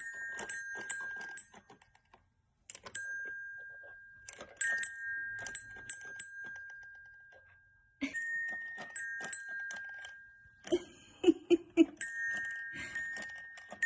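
Toy xylophone with metal bars, pawed by a cat: single notes struck every few seconds, each ringing on and slowly fading. About eleven seconds in comes a quick run of four loud knocks.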